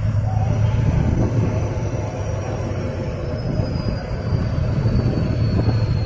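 Six-wheeled off-road trial truck's diesel engine running steadily as the truck crawls over a dirt crest, a deep continuous drone. A faint high whine slowly falls in pitch.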